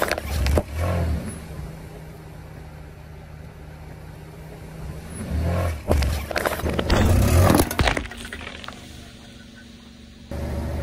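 A car's tyre rolling slowly onto a soda bottle with a balloon fixed to its neck and crushing it, with the car's engine idling in a steady low hum. Bursts of crunching and cracking come at the start and again about halfway through, the second longer and louder.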